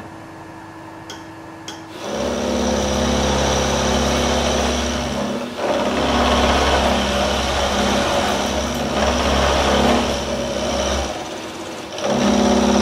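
Milling machine end mill cutting a flat on the end of a round shaft held in a hex collet block. The machine runs lightly for the first couple of seconds, then the cut begins with a loud, steady grinding-cutting noise that drops off briefly twice before picking up again.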